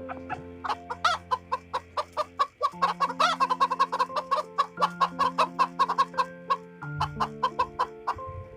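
Chickens clucking in a fast run of short, sharp calls over background music with held notes.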